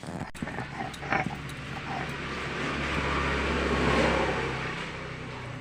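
Electric mixer grinder switched on with a click, its motor running steadily as it grinds garlic into a paste. The noise swells to a peak and then fades before the motor stops near the end.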